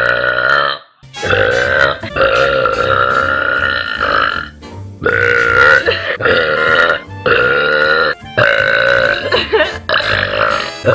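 A person belching loudly, one long, drawn-out burp after another with short breaks in between, about seven or eight in all.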